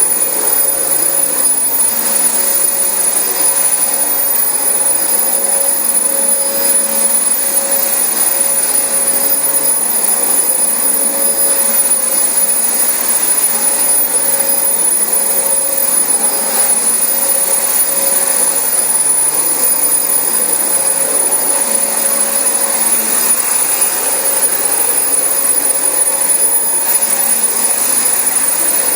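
Dyson DC25 upright vacuum cleaner running steadily over carpet, a constant motor noise with a high-pitched whine on top.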